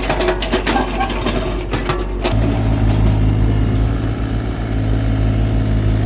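Bobcat mini excavator at work: for about the first two seconds its steel bucket scrapes and clatters through broken rock and dirt, then the scraping stops and the engine runs on steadily, its hum growing louder.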